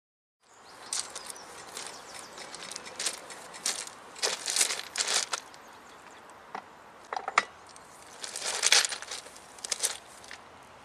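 Irregular metallic clanks, clicks and rattles from a petrol impact wrench and its rail tool carrier being handled and positioned, over a steady background hiss. The loudest clatters come about four to five seconds in and again near nine seconds.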